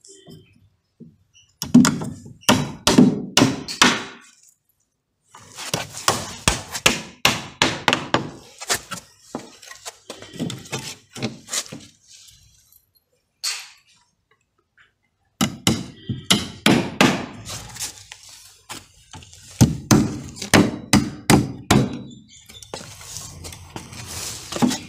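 Hammer driving nails into the timber and plywood of a footing formwork box: runs of quick, sharp strikes with short pauses between them.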